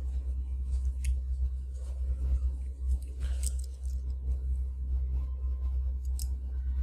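Steady low hum of background noise with a few faint, short clicks about one, three and six seconds in.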